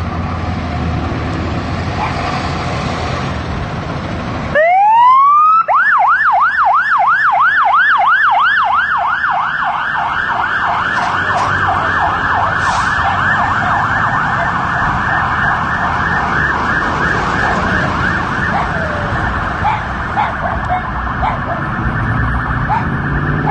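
Emergency vehicle siren: a low vehicle rumble, then about four and a half seconds in the siren comes on with a rising wail and switches at once to a fast yelp of about four to five sweeps a second, which keeps going.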